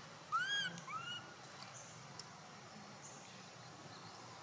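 Baby long-tailed macaque giving two short, high-pitched arching squeals about half a second apart near the start, the second fainter.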